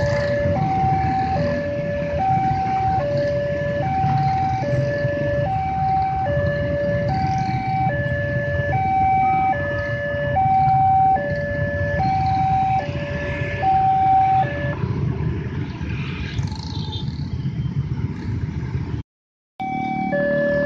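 Railway level-crossing warning loudspeaker sounding its two-tone alarm, a lower and a higher tone alternating about every three-quarters of a second, over the rumble of motorcycle and road traffic. The alarm stops about fifteen seconds in and starts again near the end.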